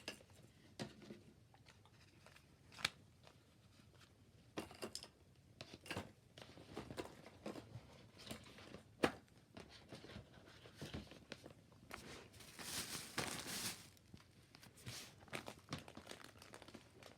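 Crinkling and rustling of gift-bag packaging and socks being handled and packed, with scattered light taps and clicks; a denser stretch of crinkling about twelve to fourteen seconds in.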